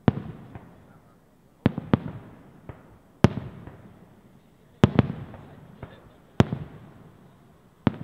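Aerial firework shells bursting overhead: about eight sharp bangs, roughly one every second and a half with some in quick pairs, each trailing off in a rumbling echo.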